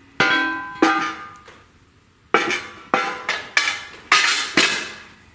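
A steel bellhousing being fitted and seated onto the back of a V8 engine block: eight sharp metallic knocks, each ringing briefly, two near the start and a quicker run of six in the second half.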